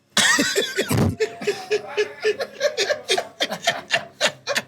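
Men laughing at a joke: a loud burst of laughter, then a run of short rhythmic chuckles.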